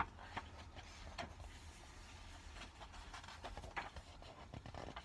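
Sheets of a paper patternbook being turned and handled: a few soft paper rustles and taps over a low hum.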